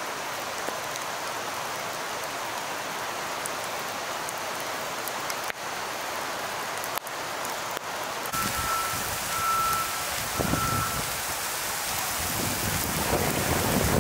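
Steady rain falling on a road for the first eight seconds or so. Then a Caterpillar 938K wheel loader's diesel engine is heard running under the rain, with its backup alarm beeping three times, followed by heavier rumbles as it works the rockslide debris.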